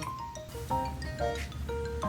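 Background music: a light instrumental tune of short plucked or mallet-like notes over a steady bass.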